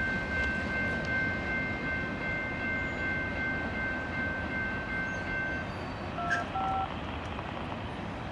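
Railroad crossing warning bell ringing over the low rumble of a departing freight train, the bell stopping about halfway through as the gates finish rising. A couple of short beeps follow soon after.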